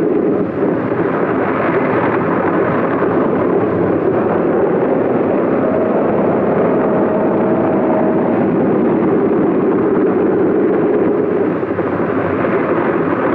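Propeller biplane's piston engine running steadily at high power: a loud, dense drone with a faint steady hum under it.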